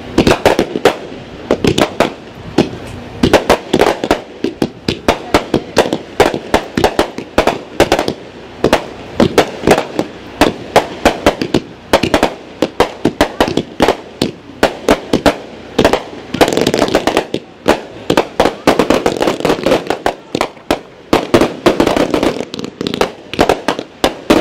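Aerial fireworks bursting in a continuous barrage: many sharp bangs a second, with no let-up.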